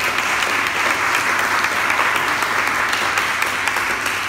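A small audience applauding, steady clapping at the close of a scene.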